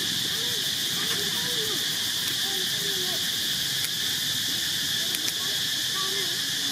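Steady chorus of insects, a constant high-pitched drone. Faint low calls rise and fall underneath it.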